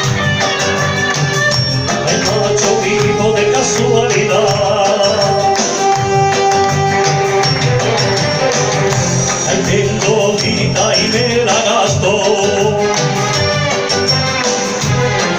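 Loud recorded backing music of a Spanish rumba playing through PA speakers, an instrumental stretch with a steady beat and no live singing over it.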